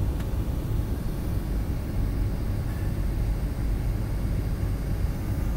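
Steady low rumble of airliner cabin noise during the descent to landing: engine and airflow noise heard from inside the cabin.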